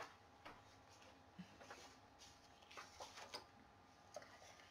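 Near silence with a dozen or so faint, irregular clicks and taps, as of small objects being handled.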